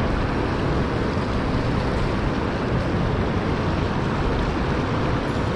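Steady rushing of shallow river water running over rocks, an even noise with no breaks.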